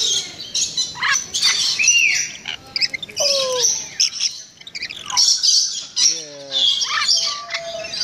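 Rainbow lorikeets feeding from a hand, screeching and squawking in harsh, short, repeated bursts, with a few gliding calls between them.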